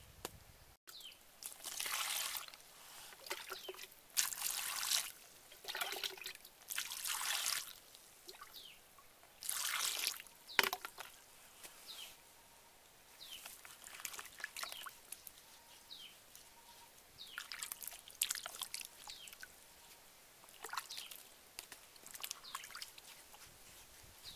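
Water splashing and sloshing in a plastic bowl as hands wash sweet potatoes, rubbing and turning them in the water. It comes in irregular spurts of a second or so, heavier in the first half.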